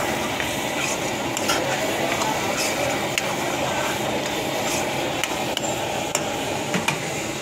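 Long metal spatula scraping and clinking against a steel karahi as thick shrimp karahi gravy is stirred, with irregular clicks over a steady rushing background noise.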